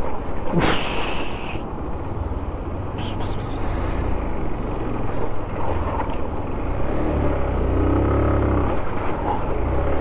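Motorcycle engine running at low speed over a rough, potholed mountain road, with two short bursts of hiss in the first four seconds and the engine note rising and falling about seven to nine seconds in.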